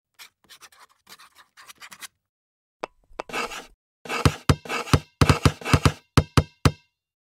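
Pencil scratching on paper in short strokes, then a quick series of about a dozen sharp knocks as small balls bounce.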